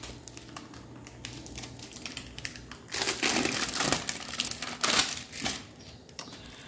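Clear plastic wrapping crinkling as it is pulled off a roll of adhesive target stickers, in irregular crackles that are loudest from about three to five and a half seconds in.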